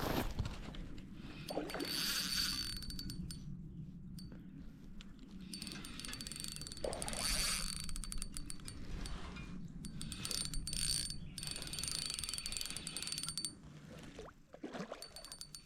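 Spinning fishing reel ratcheting in repeated bursts of rapid clicking, each lasting about two seconds, with short pauses between.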